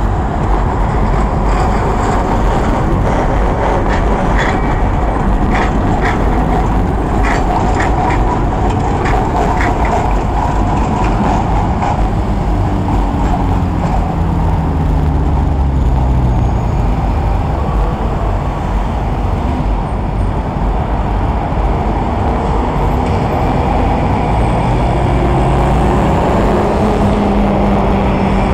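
Ganz ICS articulated tram pulling away and rolling over curved track and switches, its wheels clicking sharply a dozen or so times in the first half, over a steady rumble of city traffic. Later the traffic noise takes over, with engines rising and falling in pitch.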